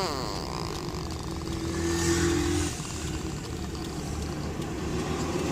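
Baby snoring: a low rattling rumble, with a louder drawn-out snore about two seconds in.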